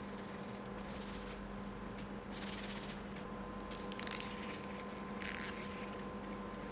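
A card sliding into and out of the slots of a stitched leather card holder: a few short scraping rustles, over a faint steady hum.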